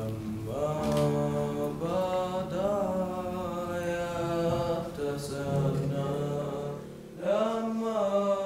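Voices singing a slow, chant-like melody in long held notes, breaking off briefly about seven seconds in and then starting again.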